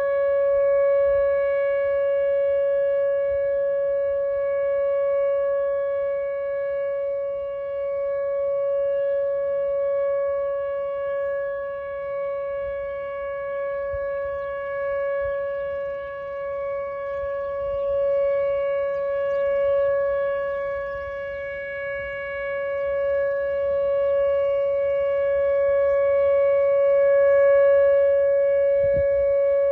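Whelen 2900 electronic outdoor warning siren sounding a steady, unwavering tone during a siren test. Its loudness slowly swells and fades while the pitch stays fixed.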